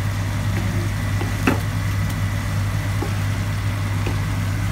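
A spatula stirring vegetables in a frying pan, knocking against the pan a few times, the sharpest about a second and a half in. Under it runs a steady low hum.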